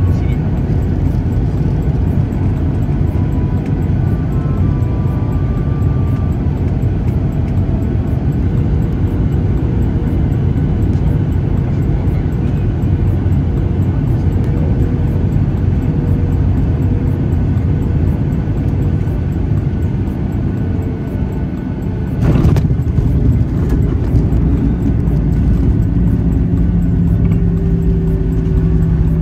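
Jet airliner cabin noise on final approach and landing, heard at a window seat over the wing: a steady engine and airflow rumble, with a single thud about 22 seconds in as the main wheels touch down, after which the rumble is a little louder.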